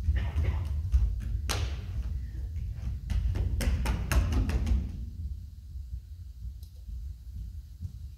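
Dancers' feet on a wooden stage floor: irregular thuds and slaps of steps and landings, clustered in the first five seconds and then thinning out, over a steady low rumble.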